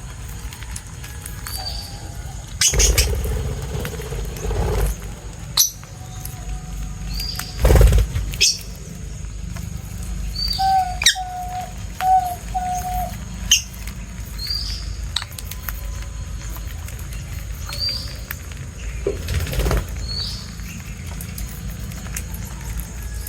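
Small birds calling with short, high chirps every second or two, with a run of four short lower notes about halfway through. Several louder thumps and rustles break in, the loudest a little after the start, over a steady low rumble.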